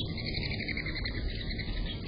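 Birds chirping in a rapid, steady, pulsing trill, over a low rumble.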